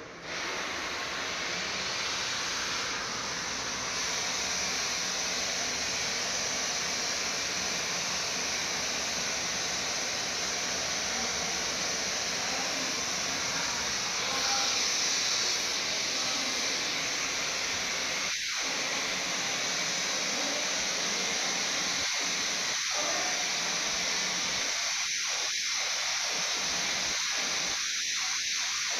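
Steady, even hiss like static.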